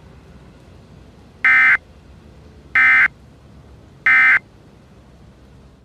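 Emergency Alert System end-of-message signal: three short, identical buzzing digital data bursts a little over a second apart, over a faint hiss.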